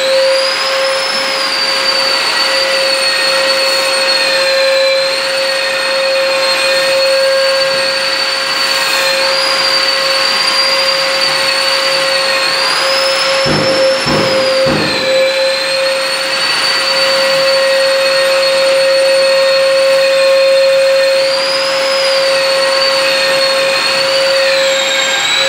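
Long-reach wall sander with its dust-extraction vacuum running, the sanding head worked over a plastered wall: a steady motor hum under a high whine that wavers up and down, with a few knocks about halfway through.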